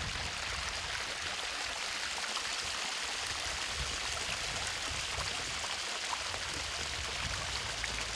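A stream of running water, with a steady, even rush.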